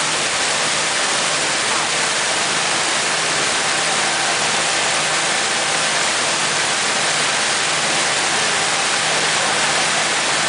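Steady rushing of a passenger motor boat under way: the churning wake and wind noise, over a low, even engine drone.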